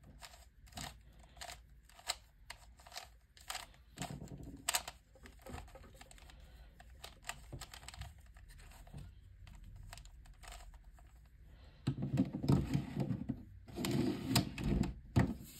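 Plastic clicking and clacking of a Fisher cube's layers being turned by hand. Single turns come about twice a second at first, then there are two bursts of fast, rattling turns near the end.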